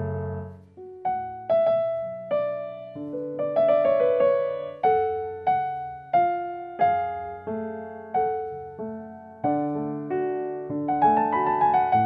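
Background piano music: a slow, gentle melody of single struck notes, about two a second, over lower accompanying notes.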